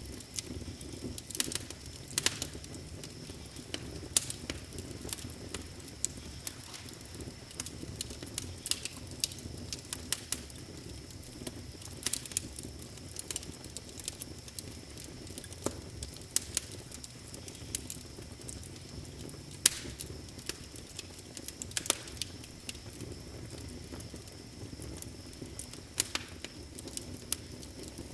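Wood fire crackling in a fireplace: irregular sharp pops and snaps, several a second, a few of them louder, over a steady low hiss of burning.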